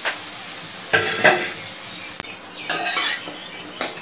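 Bread pieces sizzling as they fry in hot ghee in a metal kadai, with a steel spatula scraping and turning them several times.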